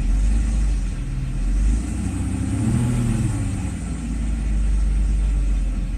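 Mercedes SL600's V12 engine idling, with a brief rise in revs and a fall back to idle about two and a half to three and a half seconds in. The repaired electronic throttle module holds a normal idle and responds to the throttle.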